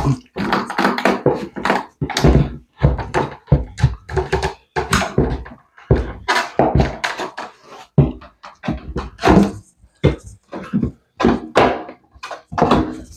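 Wooden baseboard trim being prised and pulled off a wall by hand: a run of irregular knocks, thunks and scrapes as the board works loose from its nails.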